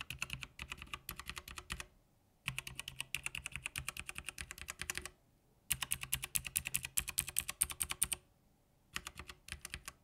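Logitech G PRO X mechanical keyboard with hot-swappable GX switches being typed on in quick runs of keystrokes, about eight to ten a second, broken by three short pauses.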